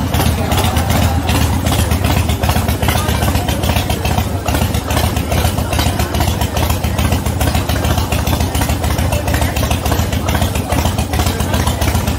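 V-twin motorcycle engine running steadily at low road speed, deep and loud.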